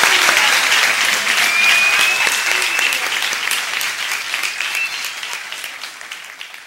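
Audience applauding, with a long high whistle in the middle; the clapping thins out and dies away near the end.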